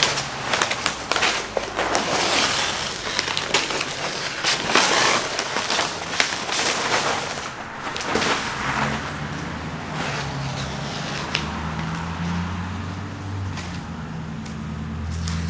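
Masking paper and tape crackling and tearing as they are peeled off a freshly painted car body. About eight seconds in, the crackling eases and a low steady hum comes in underneath.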